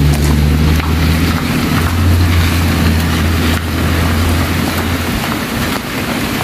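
A Toyota minivan's engine running with a low hum as it drives off over a wet gravel road. The hum fades about five seconds in, leaving a steady hiss.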